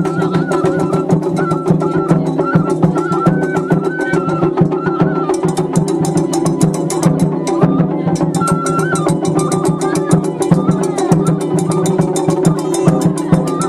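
Japanese festival music: fast, even percussion with drums under a high melody that steps up and down.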